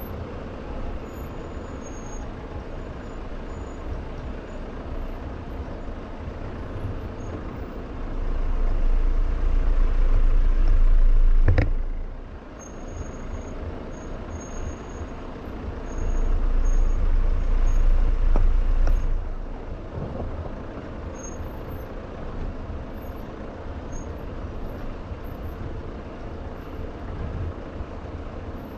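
Jeep 4x4 driving slowly down a rough dirt trail, its running and jolting picked up by a mic outside on the vehicle. Two louder low rumbles of about three seconds each come in the first half and middle, with a single sharp knock between them.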